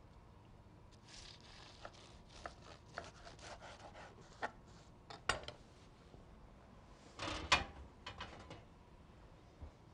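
Chef's knife cutting through the pastry crust of a beef Wellington on a wooden cutting board: a run of small crackles and scrapes, then a few sharper knocks of the knife on the board, the loudest a little past the middle.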